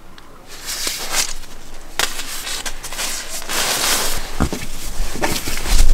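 Rustling and crinkling of nylon down clothing and bedding as a person shifts about on a sleeping pad, growing louder, with a few heavy low thuds near the end.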